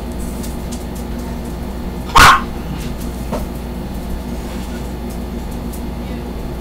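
Chihuahua barking once, a single short bark about two seconds in, over a steady low hum.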